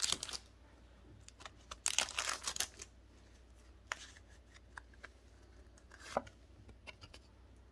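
Foil booster-pack wrapper crinkling for about a second as the cards are pulled out, followed by a few faint clicks and slides of the trading cards being handled.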